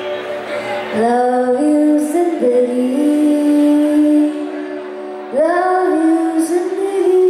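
A woman sings a slow melody live over steady instrumental backing, in two held phrases: one starting about a second in, the other about five and a half seconds in, with a softer lull between them.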